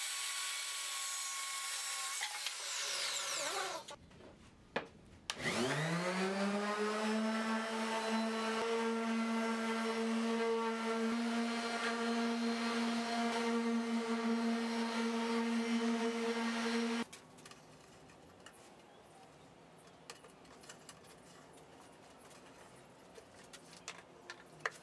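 A circular saw finishing a cut through plywood, then spinning down with a falling pitch over about two seconds. After a short pause a palm sander starts up, rises in pitch to a steady hum while sanding plywood panels, and cuts off suddenly about 17 seconds in. Light handling clicks follow.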